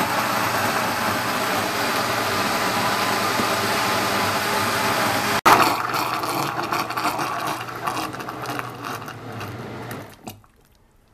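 Countertop blender running steadily, its blades puréeing a thick tomato sauce in the jar. After a split-second break about halfway, it keeps running, then winds down and stops near the end.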